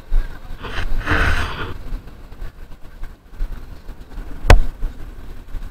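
Rustling handling noise on a body-worn camera as the wearer walks, in two bursts during the first two seconds, then one sharp click about four and a half seconds in.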